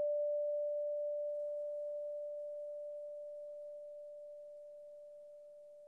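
A struck bell ringing out one clear, pure tone that fades away slowly and evenly. It is rung in remembrance after a name of the departed is read.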